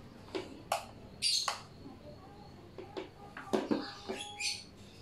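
An orbital sander, not running, handled in the hands: a string of sharp clicks and knocks. A bird calls twice in the background, about a second in and near the end.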